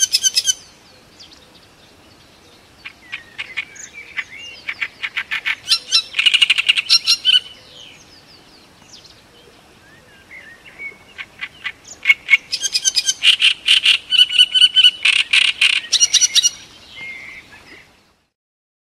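Great reed warbler singing: loud phrases of fast repeated notes, in bursts of a few seconds with short pauses between, stopping abruptly near the end.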